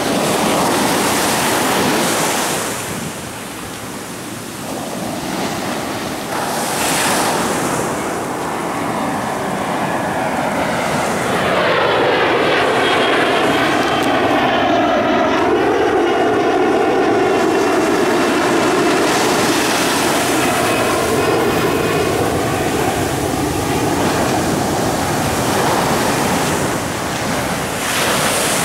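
Ocean surf breaking and washing in, with a low-flying jet plane passing overhead from about eleven seconds in. Its engine noise carries a set of tones that slide up and down and fade out near the end.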